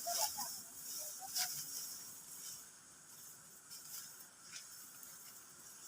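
Steady high-pitched hiss of outdoor background noise, with a few faint words of distant speech in the first second or so.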